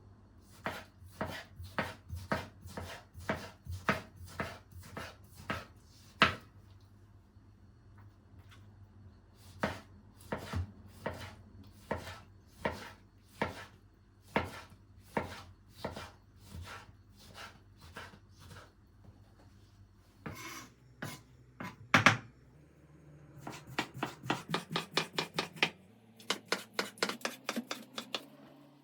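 Knife chopping on a cutting board: single cuts at about two a second in runs with pauses, a couple of louder knocks past the middle, then a faster run of quick chops near the end.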